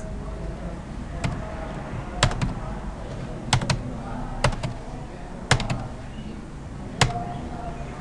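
About a dozen sharp clicks from a computer keyboard and mouse, scattered and several in quick pairs, over a steady low background noise.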